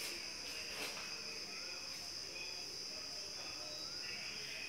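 Steady, unbroken high-pitched insect drone, with faint voices underneath.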